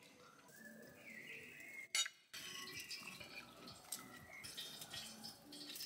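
Knives and forks scraping and clinking against ceramic dinner plates while food is cut, faint and scattered, with one sharper clink about two seconds in.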